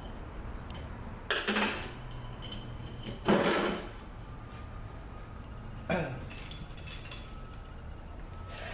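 Metal transmission parts clinking and clattering as they are handled and set down on a workbench, in three main bursts, the loudest about three seconds in.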